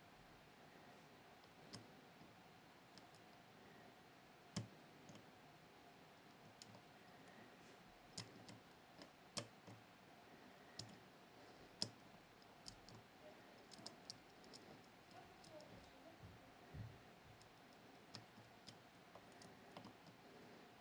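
Faint, irregular small clicks of a pick working the pins inside a Miwa JC (Kaba Star Orion) dimple lock during picking, with a few sharper clicks scattered through.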